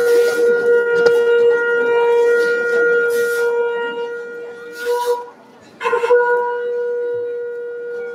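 A wind instrument holding one steady note, breaking off for a moment about five seconds in and then sounding again.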